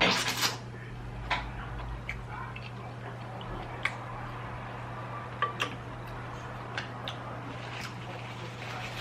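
Eating at a table: a brief rustle at the very start, then scattered light clicks and clinks of cutlery and dishes, a few seconds apart, over a steady low hum.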